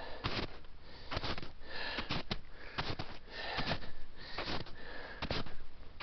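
Footsteps crunching through several inches of crusty snow, a step about every half second, with the hiker's breathing between them.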